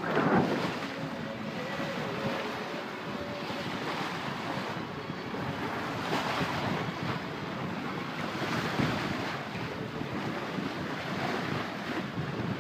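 Steady wind noise on the microphone with water rushing along the hull of a sailboat under sail.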